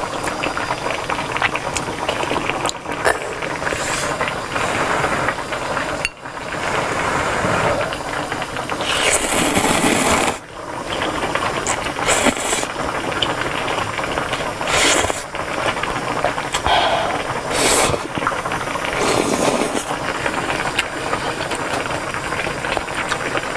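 Close-miked eating sounds: ramen noodles from budae jjigae slurped several times in loud, hissing pulls, with chewing in between.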